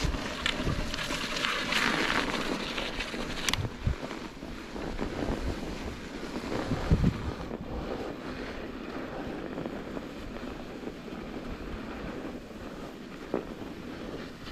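Vintage mountain bike's 26-inch tyres rolling over a snowy dirt trail, a crackly hiss for the first few seconds that then settles lower, with wind on the microphone. Now and then the bike knocks over a bump; the sharpest knock comes about seven seconds in.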